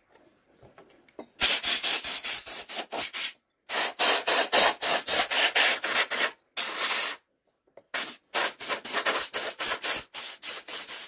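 Compressed air hissing from an air blow gun in rapid short blasts, blowing dirt off an old two-stroke engine, in several runs of pulses with brief pauses between them.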